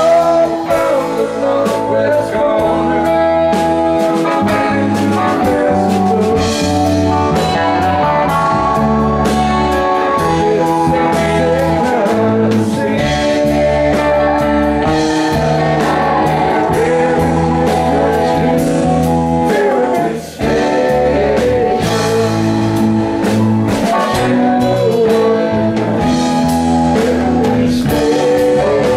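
Live rock band playing: electric guitars, electric bass and drum kit, with a male voice singing the lead. The music is loud and steady, with a brief drop about two-thirds of the way through.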